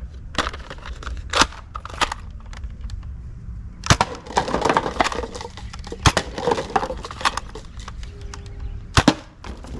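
Plastic toy blasters being handled, with scattered sharp clicks and knocks over a steady low rumble.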